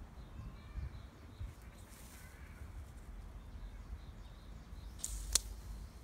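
Outdoor garden ambience: faint bird chirps over a low rumble, with one sharp click about five seconds in.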